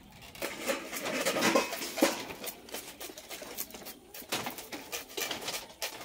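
Irregular clicks and scratchy rubbing as the singed, scaly skin of a monitor lizard is scraped by hand over a wood fire.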